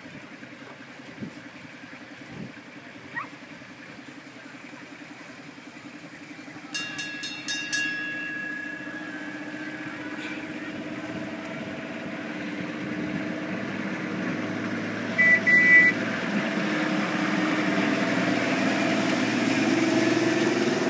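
A vehicle engine running and growing steadily louder as it approaches, with a run of short beeps about seven seconds in and a louder double horn beep about fifteen seconds in.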